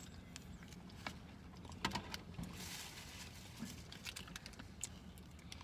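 Light handling noises: scattered small clicks and taps, with a short rustle about two and a half seconds in, over a low steady hum.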